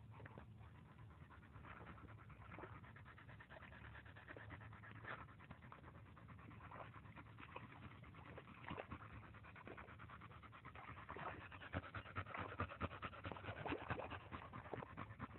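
A cattle dog panting while it wallows and paws in a muddy puddle, with wet splashing; faint at first, getting louder in the last few seconds.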